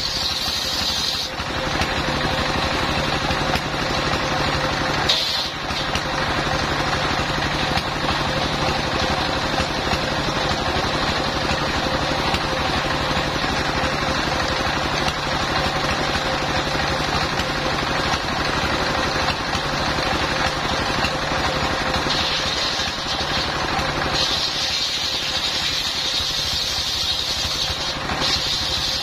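Homemade circular-saw rig driven by a single-cylinder diesel engine, ripping a long coconut-palm log lengthwise. The engine runs steadily under a continuous cutting rasp through most of the stretch, which gives way to a higher blade whine near the end.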